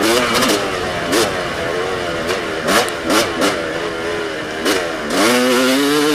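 Two-stroke Yamaha YZ295 dirt bike engine revving up and falling back again and again as the throttle is worked, with short sharp knocks and clatter scattered through it. About five seconds in, the engine settles into a steadier, higher-pitched run.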